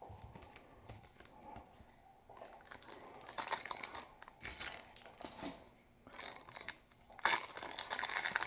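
Booster pack wrapper being crinkled and torn open by hand, in dense crackles: faint at first, busier after about two seconds, and loudest near the end.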